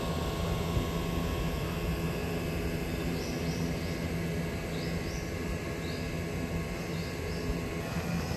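Steady mechanical hum holding several fixed pitches, with a few short, faint, high chirps about three to seven seconds in.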